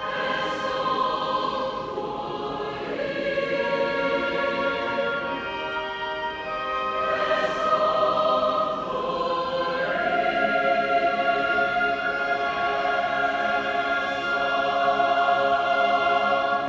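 Student honor choir singing slow, held chords together with a symphony orchestra, the harmony changing every few seconds.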